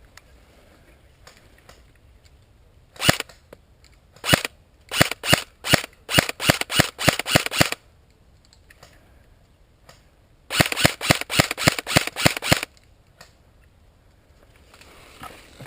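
Airsoft guns firing in sharp pops. There are two single shots about three and four seconds in, then a string of shots at about four to five a second for nearly three seconds, and after a pause a faster string of about six a second for two seconds.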